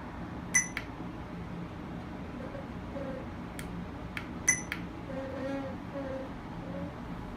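Two short electronic beeps from a radar detector, about four seconds apart, with a few faint clicks between them, over a steady low car-cabin hum.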